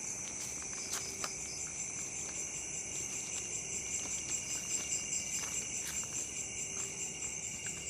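Crickets chirping in a continuous high trill, a rapidly pulsing chorus with a second, lower steady trill beneath it.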